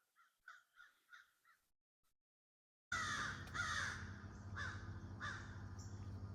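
Crows cawing: a quick run of about six caws, a pause, then four louder, more spaced caws over a steady low hum that starts abruptly about three seconds in.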